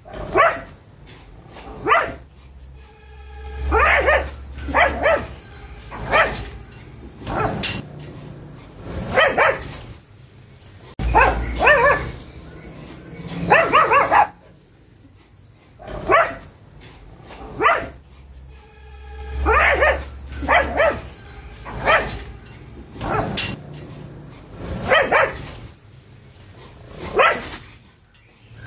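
Pug barking over and over: single barks and quick runs of two or three, every one to two seconds.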